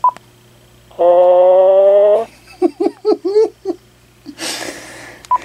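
Uniden cordless phone ringing with an electronic ring tone for about a second. Its talking caller ID then announces the caller in a short burst of synthesized-voice syllables, followed by a brief hiss. Short beeps at the start and near the end.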